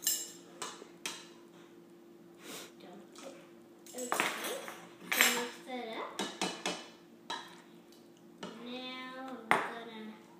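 Metal spoon knocking and scraping against the inside of a mixing bowl while stirring, in irregular clinks and taps.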